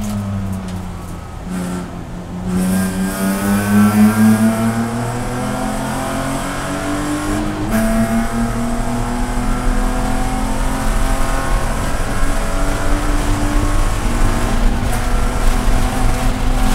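BMW Spec E46 race car's inline-six engine heard from inside the cabin. The pitch falls as the car slows for a corner in the first two seconds. The engine then accelerates at full throttle with a steadily rising note, drops in pitch at an upshift about eight seconds in, and climbs again.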